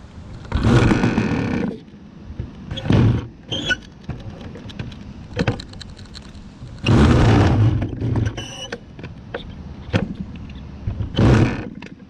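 Handheld electric starter spinning a model airplane engine's propeller in short bursts of about a second, four main times, with quiet between: the engine does not catch and run.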